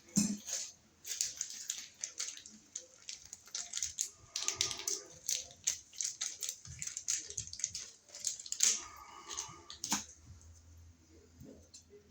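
Rapid irregular clicks, taps and rattles of small hard objects being handled, with two short rustling scrapes among them; it stops about ten seconds in.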